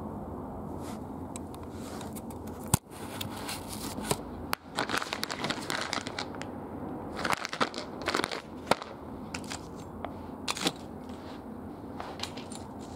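Irregular crackling and crinkling as a small plastic bag of locking wheel bolts and broken debris on the floor are handled, with a sharp knock about three seconds in.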